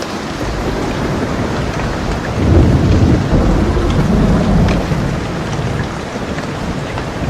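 Steady rain, with a roll of thunder that swells about two and a half seconds in and dies away over the next few seconds.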